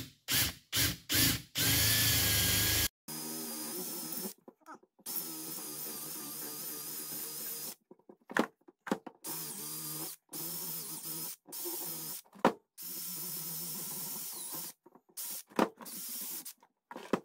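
Cordless drill boring a hole through a hardwood axe handle from the second side to meet the first hole. It runs in a series of short bursts with the trigger let off between them, one louder burst about two seconds in, then slower quieter runs.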